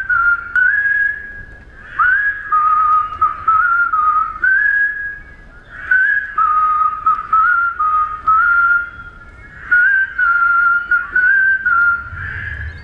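A large crowd whistling together for a mass-whistling record attempt, with one whistler standing out clearly. That whistle steps between a few held notes in phrases of a few seconds, with short pauses between them.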